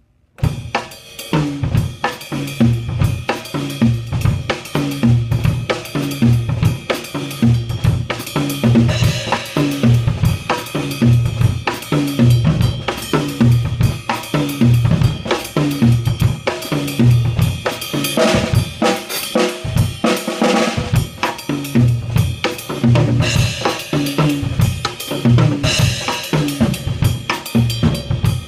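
Acoustic drum kit played in a jazz-flavoured groove: bass drum, snare, toms and cymbals in a steady rhythm, with a busier, cymbal-heavy passage about two-thirds of the way through.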